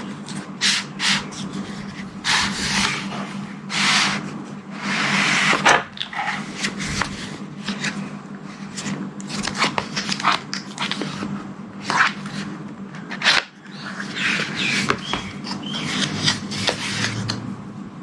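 Cardboard and plastic packaging of a stylus being handled and opened by hand: irregular rubbing and scraping with sharp clicks and snaps, over a steady low hum.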